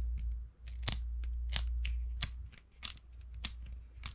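3M Command Velcro picture-hanging strips being pulled apart by hand: a run of sharp crackling rips, about six of them, roughly one every two-thirds of a second. A low hum under them fades out about halfway through.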